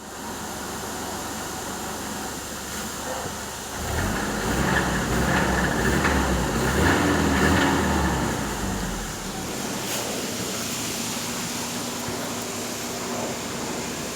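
Car engine running, growing louder for about five seconds from about four seconds in, then settling back to a steady run. A single sharp click sounds about ten seconds in.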